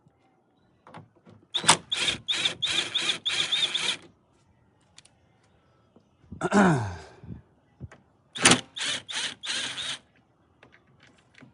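Ratchet wrench working 10 mm taillight bolts loose in two runs of quick back-and-forth clicking strokes, with a brief falling whir between the runs.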